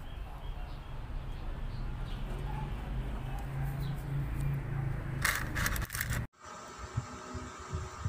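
Steady low hum with a brief burst of crinkling from plastic packaging being handled about five seconds in. An abrupt cut near the end leads into a different steady hum.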